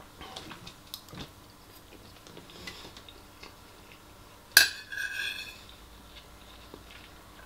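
Metal spoon scraping and tapping in a ceramic bowl of rice, with one sharp clink about four and a half seconds in that rings briefly.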